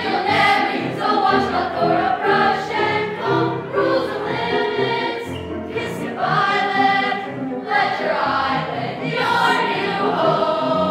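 A chorus of middle-school voices singing a musical-theatre number with musical accompaniment.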